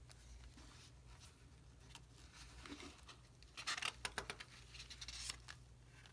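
Paper pages of an old booklet being handled and turned: faint rustling and crinkling, busiest and loudest from about halfway through, over a low steady hum.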